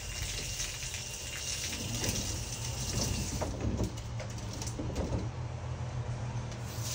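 Water from a garden hose spraying and pattering onto a toy car: a steady hiss over a low rumble.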